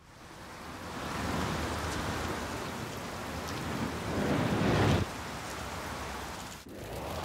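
A rushing noise, like a sound-design noise swell, builds over about five seconds and cuts off abruptly, then carries on lower, dips briefly near the end and starts to swell again.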